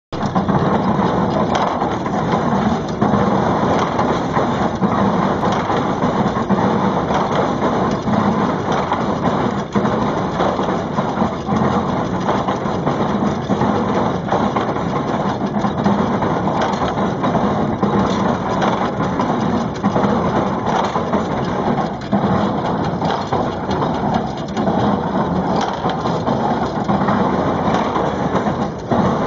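Baler powered by a steam traction engine, running with continuous mechanical clatter and irregular knocks.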